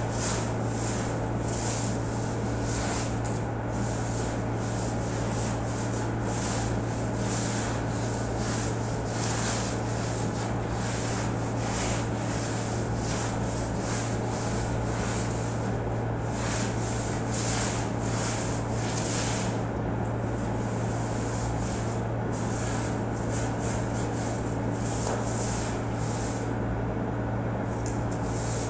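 Repeated swishing strokes, about one a second, of a long-handled broom working a floor, over the steady low hum of a window air conditioner running.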